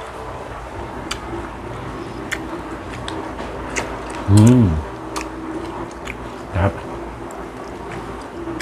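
Close-up eating sounds: chewing and mouth smacks with scattered sharp clicks as seafood is eaten by hand. About four and a half seconds in, a man gives a short, loud voiced sound that falls in pitch, the loudest thing here, and a shorter one follows about two seconds later.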